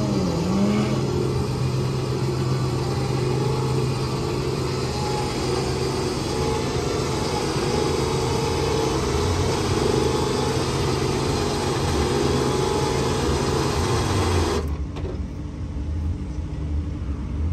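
Small electric trailer winch, powered by a Milwaukee power-tool battery, running steadily under load as it pulls a car up onto an aluminium trailer. It stops abruptly a few seconds before the end.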